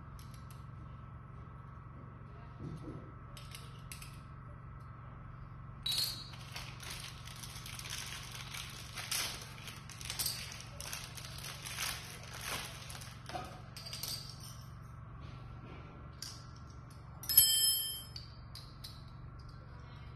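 Small metal assembly parts being handled: rustling and light clicks for several seconds, then near the end a metal piece set down on the tile floor with a sharp clang that rings briefly at several pitches. A faint steady hum runs underneath.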